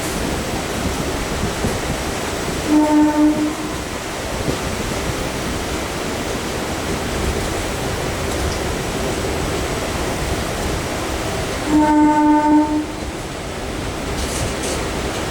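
MEMU electric train running with a steady rumble, its horn sounding two blasts of about a second each, the second about nine seconds after the first.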